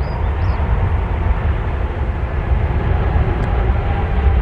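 Jet airliner's engines rumbling loudly as it passes on the runway, with a faint whine that slowly falls in pitch.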